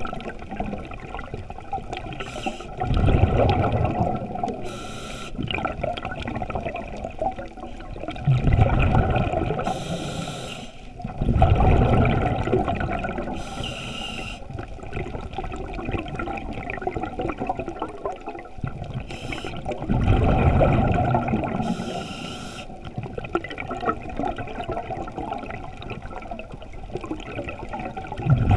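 Scuba diver breathing through a regulator underwater: short hisses of inhalation through the regulator, and five bursts of exhaled bubbles gurgling past, a few seconds apart.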